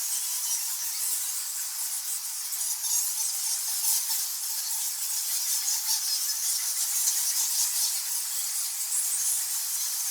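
A large colony of bats squeaking and squawking in a dense, continuous chorus of high-pitched chatter.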